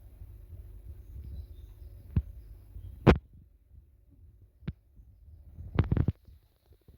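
A low rumble, then a few separate dull thumps: a sharp, loud one about three seconds in and a quick cluster of them near the end.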